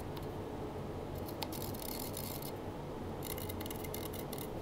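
Felt-tip marker scratching on the concrete-block wall, drawing circles through the mounting holes of a metal electrical box held against it: two scratchy spells of about a second each, with a few light clicks.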